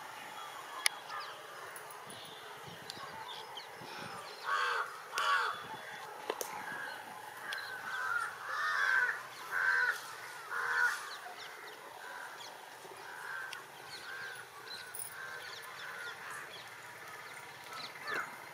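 Birds calling: a run of short, repeated calls starting about four seconds in, loudest near the middle, then trailing off into fainter calls over a steady background hiss.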